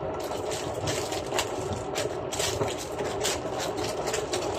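Irregular rustling and crackling handling noises, several a second, over a steady low hum.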